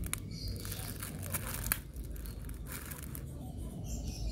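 Clear plastic wrap crinkling and rustling in irregular bursts as it is handled, with a few sharp crackles.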